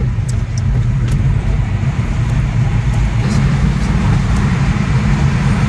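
Car driving through a long road tunnel: a steady low rumble of tyre and engine noise, heard from inside the car.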